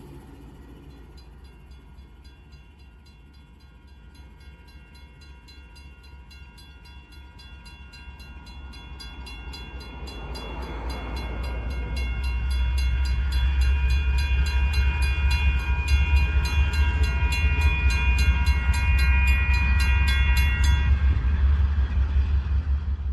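Norfolk Southern AC44C6M diesel locomotive running light and drawing closer: a low rumble grows from about eight seconds in and is loud from about twelve seconds, with a steady high whine over it that fades near the end.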